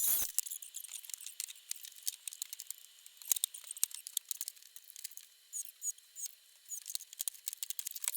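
Scattered light clicks and taps, thin and high-pitched with no low end, with a sharper tap right at the start.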